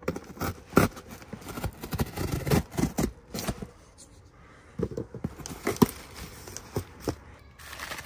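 A knife slitting packing tape on a cardboard parcel, then the box being opened and a bubble-wrapped part pulled out: irregular scraping, tearing and crinkling, with a short lull about halfway.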